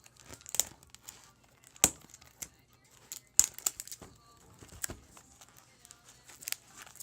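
Plastic shrink wrap being crinkled and torn off a sealed trading-card box: a string of sharp, irregular crinkles and rips.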